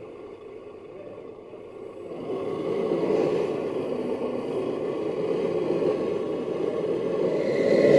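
Radio-controlled model tipper's hydraulic pump and ram running as the loaded tipper body lifts. The steady mechanical sound gets louder about two seconds in and again near the end.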